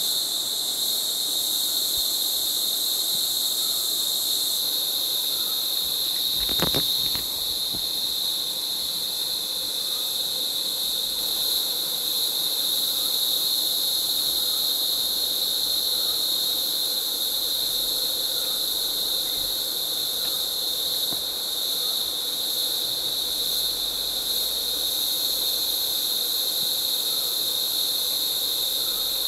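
Dense chorus of rainforest insects: a steady, shrill high-pitched buzz that does not let up, with a single brief knock about seven seconds in.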